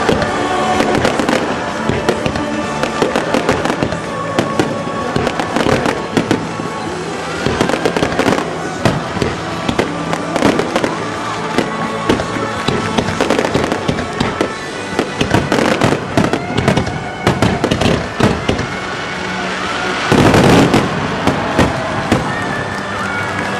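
Aerial fireworks shells bursting in a dense, rapid barrage of sharp bangs, heaviest about twenty seconds in: the closing barrage of the display.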